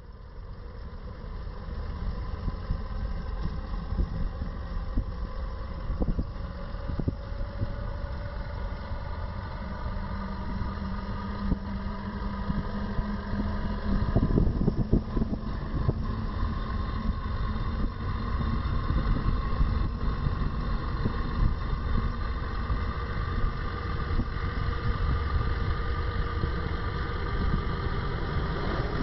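A running motor vehicle: a steady low rumble with a faint engine hum whose pitch drifts slowly.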